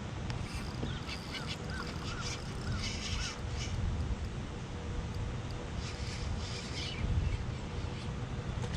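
A bird calling a quick run of about seven short rising-and-falling notes, over steady wind noise and a faint steady hum, with bursts of hiss partway through.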